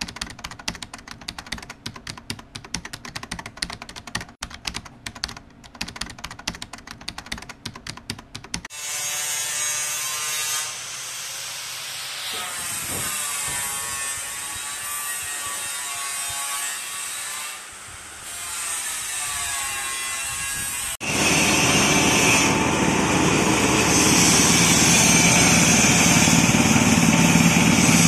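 Rapid keyboard-typing clicks as an intro sound effect, then a power-driven grinding mill for rice husks and corn cobs running with a wavering whine. About two-thirds through it turns much louder and steadier as the mill grinds the husk and cob mixture.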